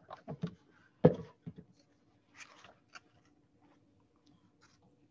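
Small clicks and knocks from things being handled close to a computer microphone, the loudest knock about a second in, then a short soft rustle, over a faint steady hum.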